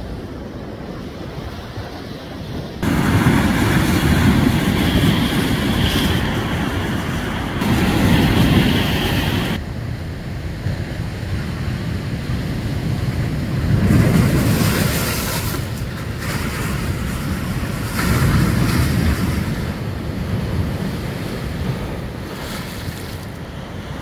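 Sea waves breaking and washing over shoreline rocks, swelling in surges every few seconds, with wind buffeting the microphone.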